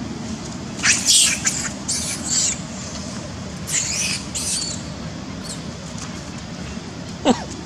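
Macaques squealing: two bouts of high, shrill squeals about a second in and again about four seconds in, then one short, sharp call that drops steeply in pitch near the end, over a steady low background rumble.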